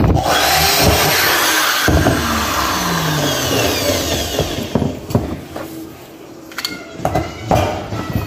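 A power tool starts abruptly and runs loud with a harsh whirring noise, then its pitch falls away as it winds down over a few seconds. A few separate knocks follow near the end.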